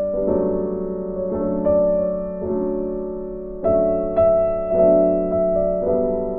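Background piano music, with new notes and chords struck every half second to a second.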